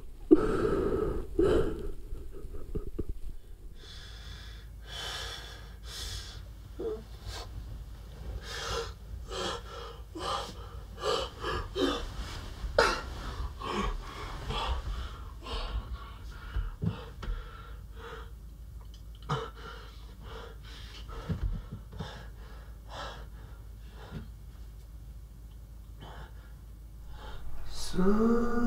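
A young man breathing in ragged gasps and sobs, the loudest a sharp gasp just after the start.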